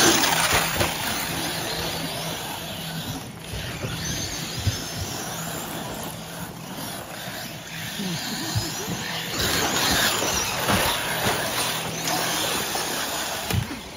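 Several radio-controlled off-road buggies racing on a dirt track: the motors whine, rising and falling in pitch as they speed up and slow, over the scrabble of tyres on loose dirt. It is loudest at the start and again about ten seconds in.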